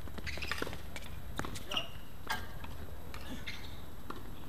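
Tennis player's footsteps and shoe squeaks on a hard court, with a few sharp knocks of the ball, over a steady low hum.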